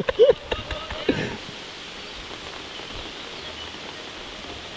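A voice calls out briefly in the first second or so, then there is a steady hiss of outdoor background noise with nothing standing out.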